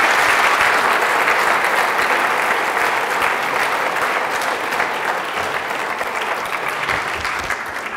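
Audience applauding, the clapping slowly dying away toward the end.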